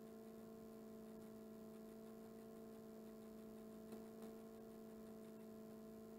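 Near silence: room tone with a faint steady electrical hum, and a couple of faint clicks about four seconds in.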